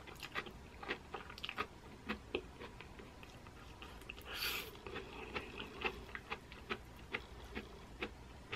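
Chewing a mouthful of crunchy, lightly sautéed zucchini noodles in pesto: many small wet clicks and crunches, with a brief louder hiss about halfway through.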